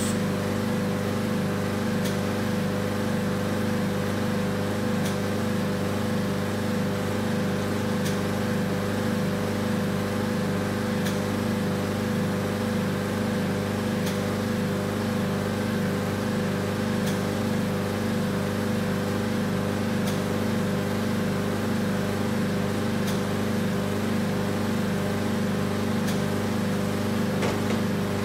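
Vacuum RF body contouring machine running with a steady mechanical hum, with a faint click about every three seconds.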